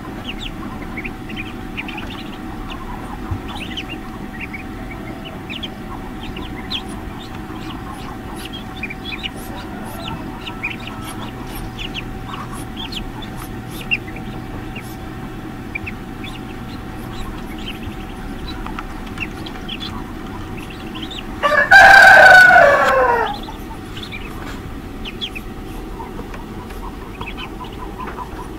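Newly hatched ducklings peeping in an incubator hatching tray: many short, high cheeps throughout, over a steady hum. About 22 seconds in, a rooster crows loudly once, its pitch falling at the end.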